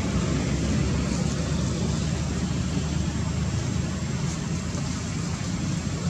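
Steady low rumble with an even hiss over it, with no distinct calls or knocks.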